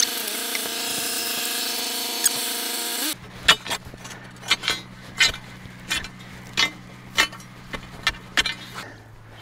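A tractor engine runs steadily, then cuts off suddenly about three seconds in. After it comes a series of sharp strikes about every half second: a steel bar ramming the loose soil around the base of a timber fence post to pack it tight.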